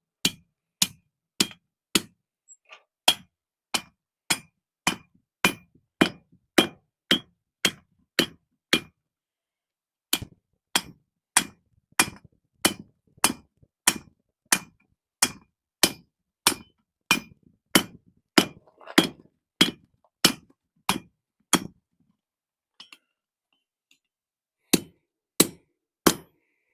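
Blacksmith's hammer striking hot steel on the anvil at about two ringing blows a second, working the bar to widen a punched hole. The blows pause for about a second near 9 s and for a couple of seconds near 23 s.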